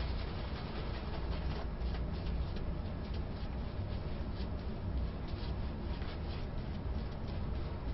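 Shaving brush working soap lather, a soft scratchy brushing with many small crackles of bristles and bubbles, over a steady low hum.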